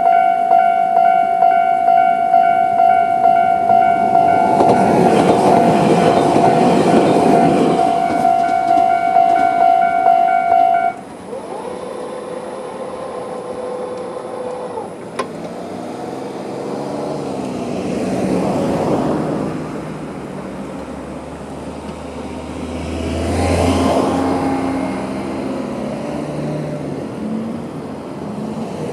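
Japanese railway level crossing's electronic alarm bell ringing in rapid repeated strokes while a Tobu Nikko Line train passes through, loudest about four to eight seconds in. The bell cuts off about eleven seconds in. A short motor whine follows as the electric barrier arms lift, ending in a click, and then road vehicles drive over the crossing.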